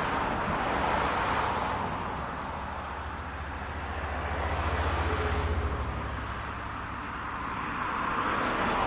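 Road traffic passing: tyre and engine noise swells and fades about three times as vehicles go by, over a steady low rumble.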